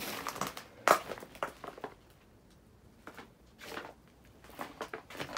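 Rustling and crunching of paper and debris being disturbed, with one sharp knock about a second in. Short, scattered rustles follow after a quieter spell.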